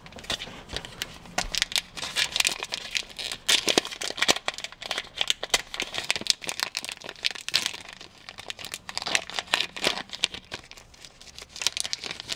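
Foil wrapper of a Pokémon trading card booster pack crinkling and tearing as it is handled and opened, a dense run of irregular crackles with brief lulls.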